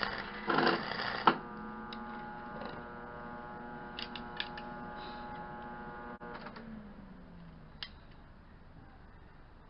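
Semi-automatic wire-feed welder arc crackling with sharp spits for about the first second, then cutting off abruptly. A steady machine hum follows, which drops in pitch and fades about two-thirds of the way through, with a few light clicks.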